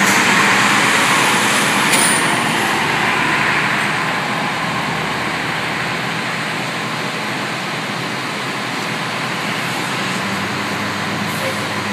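Road vehicle noise, heavy-vehicle engine and tyres, loudest at the start and easing off over the first few seconds into a steady traffic rumble.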